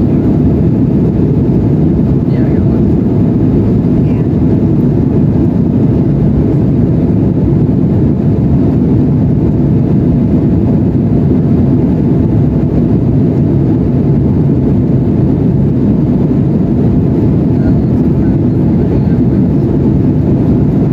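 Steady cabin noise of an Embraer E175 in flight, heard from inside the passenger cabin: an even, deep rush of airflow and its two GE CF34-8E turbofan engines, with no change in level.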